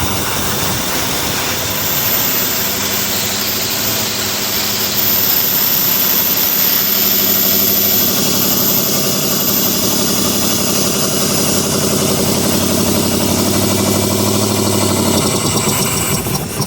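A 2004 Dodge Dakota's 4.7 L V8 running on only its four left-bank cylinders, with the right bank's coils and injectors disconnected. It is revved up about five seconds in, held at the higher speed, and drops back near the end.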